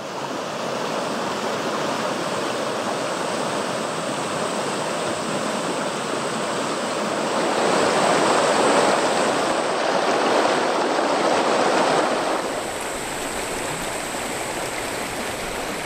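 Water rushing and splashing over boulders in a shallow rocky river rapid: a steady rush that grows louder around the middle and falls back to a softer rush about three-quarters of the way through.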